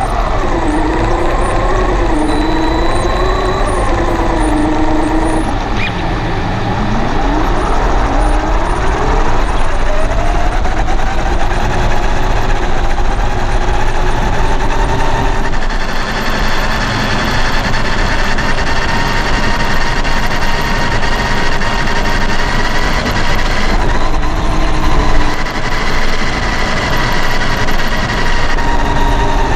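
Electric motor and drivetrain of a Traxxas RC truck whining under throttle. The pitch rises and falls with speed in the first few seconds, dips low once, then holds high and steady as it runs flat out, over the steady rough noise of tyres on the trail.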